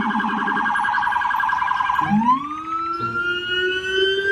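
Electronic police siren. It warbles fast until about two seconds in, then switches to a slow wail that climbs steadily in pitch.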